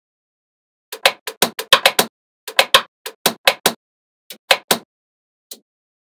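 Small magnetic balls snapping together, making sharp clicks. The clicks come in three quick runs over about four seconds, with a single last click near the end.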